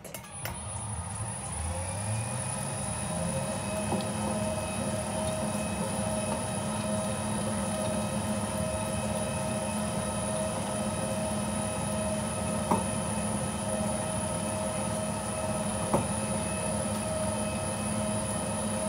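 Large commercial mixer's electric motor starting up, its pitch rising for a couple of seconds, then running steadily with a hum and a high whine while it mixes a batch of slime. Two sharp clicks come in the second half.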